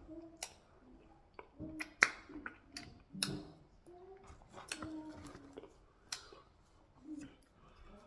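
Close-miked mouth sounds of a person eating fufu with soup by hand: a scatter of wet lip smacks and clicks, the loudest about two seconds in, with short low murmurs from the mouth between them.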